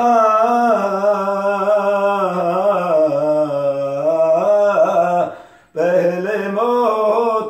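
A man singing a Sufi kalam unaccompanied, in long held notes with wavering ornaments. His pitch sinks lower around the middle of the phrase and then climbs back. He breaks off for a breath about two-thirds of the way through and then goes on singing.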